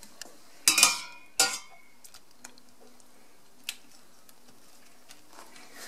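Metal slotted spoon clinking against a stainless steel cooking pot while boiled jackfruit pieces are scooped out: two ringing clinks about a second in, then a few faint clicks.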